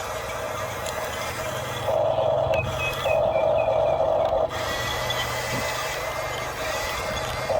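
Small electric gear motors of a Hulia RC model truck whining in on-and-off bursts as its functions are driven: one short burst about two seconds in, then a longer one, over a low steady hum.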